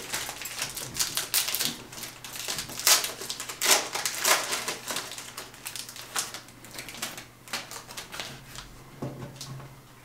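Foil trading-card pack wrapper being torn open and crinkled by hand: a run of sharp, irregular crackles that thin out near the end as the cards are slid out of the pack.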